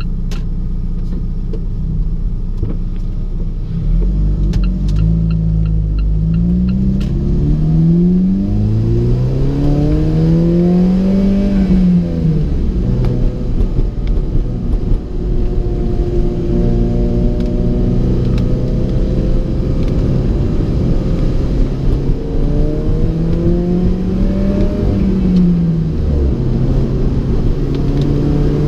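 Alfa Romeo 4C's 1.75-litre turbocharged four-cylinder engine accelerating through the gears, its pitch climbing and dropping back at each shift, then cruising at a steady pitch over constant road noise. Near the end the revs climb once more and fall away.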